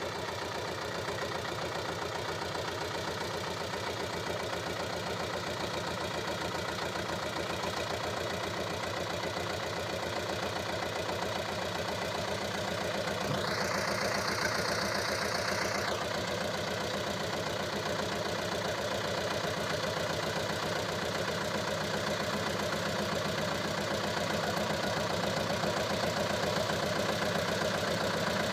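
SAME 250 tractor's diesel engine running steadily under load, growing slightly louder toward the end, with a hiss of about two seconds midway.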